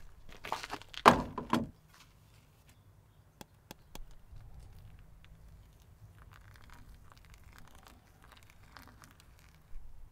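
Rustling and knocking as the mug is emptied of its filter-rinse water and the folding pour-over dripper is handled, loudest about a second in, then a few light clicks. After that, a faint thin stream of hot water poured from a gooseneck kettle onto coffee grounds in a paper filter.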